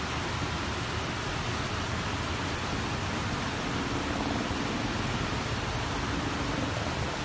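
Heavy monsoon rain pouring down in a steady, even rush. A faint low hum rises out of it for a few seconds midway.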